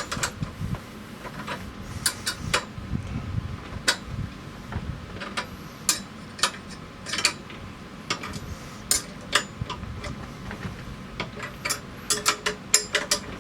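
Steel wrenches clicking and clinking irregularly against a nut, bolt and bracket while the row marker's mounting bracket is tightened onto a Jang seeder. The clicks come closer together near the end.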